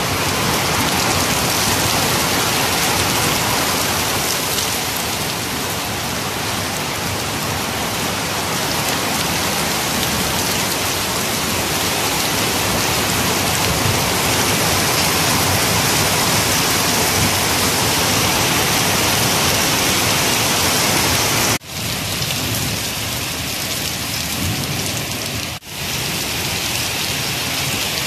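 Heavy rain pouring onto a flat concrete rooftop: a dense, steady hiss and splatter. It cuts out for an instant twice near the end.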